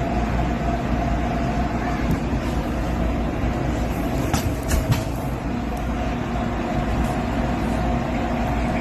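Steady mechanical rumble with a constant hum, with a few light clicks about four to five seconds in.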